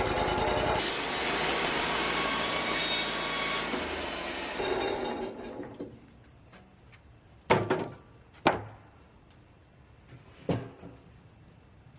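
A bandsaw sawmill cutting through a cedar board, a loud, steady hiss of sawing that fades away about five seconds in. Then three sharp wooden knocks.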